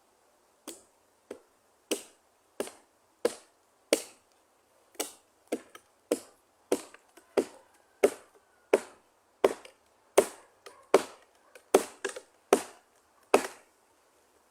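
Axe chopping wood: about twenty sharp blows in a steady rhythm, roughly one every two-thirds of a second, stopping about a second before the end.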